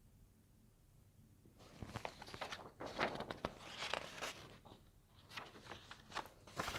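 Paper rustling in irregular bursts as pages are handled, starting about one and a half seconds in after near silence.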